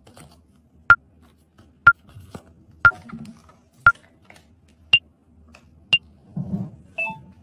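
Short electronic beeps, about one a second. Five are at one pitch, the next two are higher, and a last beep near the end has a lower second note.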